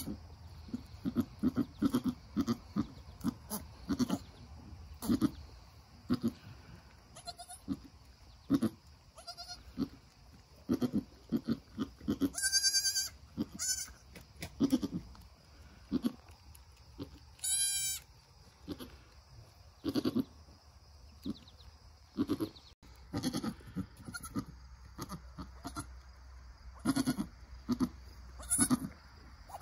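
Nigerian Dwarf doe giving many short, low-pitched calls to her newborn kid as she licks and nudges it. Two brief high-pitched bleats cut in, about twelve seconds in and again about five seconds later.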